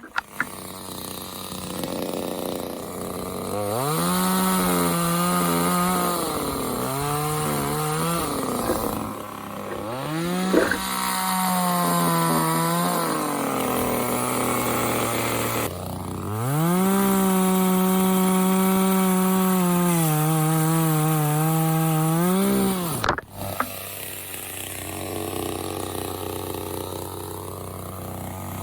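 Parkside top-handle petrol chainsaw's small two-stroke engine revving up to full throttle and dropping back to idle several times, cutting through wood on the high-revving stretches.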